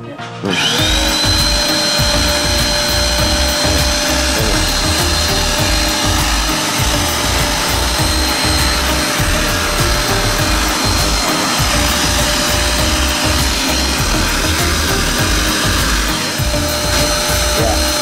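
650-watt RVC RYU vacuum cleaner motor switching on about half a second in, whining up to speed and then running steadily: a high whine over a loud rush of air.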